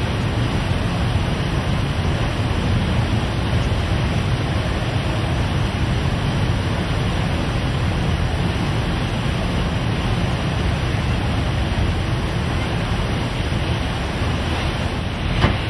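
Steady wind rushing over the microphone and the wash of the sea aboard a moving ship, with a low rumble underneath; a short click near the end.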